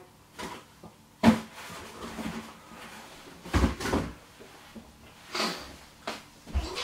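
A cardboard box and other things being handled, moved and set down on a wooden floor: a series of knocks and thumps, several of them heavy and dull, with rustling between.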